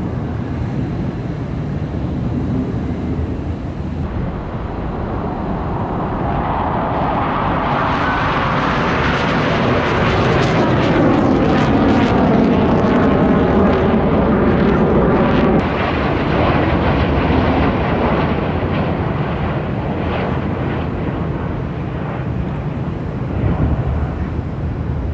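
An airplane flying past overhead. Its engine roar builds over several seconds to a peak around the middle and then fades, with a sweeping whoosh as it goes by.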